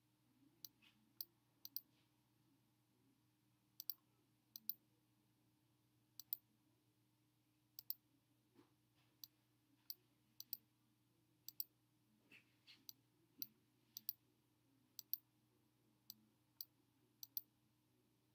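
Sharp, irregular clicks of a computer's pointing device being clicked, many in quick pairs, about one a second, over a faint steady hum.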